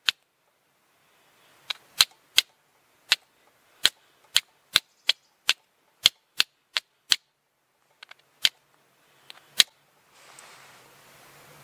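Flint and steel: a steel striker struck down the edge of a hand-held flint, about eighteen sharp strikes in quick runs of two or three a second, throwing sparks down into a tin of charred punk wood to catch an ember. The strikes stop near the end, leaving a faint steady hiss.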